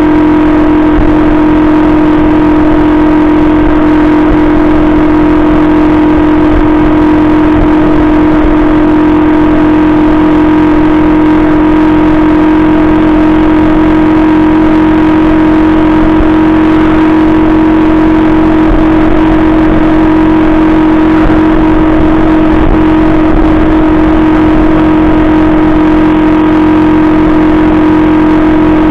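Benzer Yankee 50cc moped's single-cylinder four-stroke 139FMB engine running steadily at cruising speed, heard close up from on board, with a constant whine and rough low rumble that do not change.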